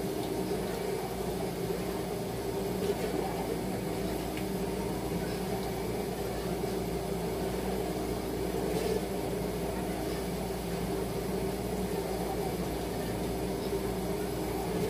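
Steady low machine hum with a faint even tone in it, unchanging throughout.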